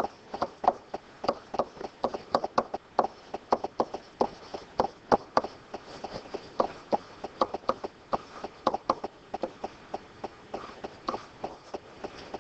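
Pen stylus tapping and scratching on a writing surface during handwriting: an irregular run of small sharp taps, several a second.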